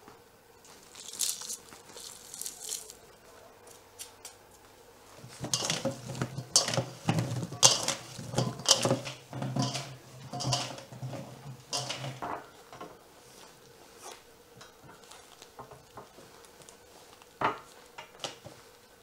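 Button mushrooms tossed by hand in a stainless steel bowl, knocking and rustling against the metal in an irregular clatter that is busiest in the middle. Near the end a few separate knocks follow as the mushrooms are set out.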